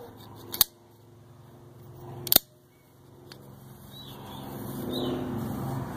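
Two sharp metallic clicks, the second louder and about two seconds in, as a steel lock ring is worked into its groove at the top of an RE4R01A automatic transmission's forward clutch drum. A low hum grows louder in the second half.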